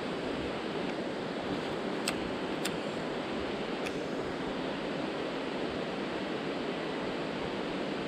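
Steady rushing of a mountain river, with three short sharp clicks about two, two and a half and four seconds in.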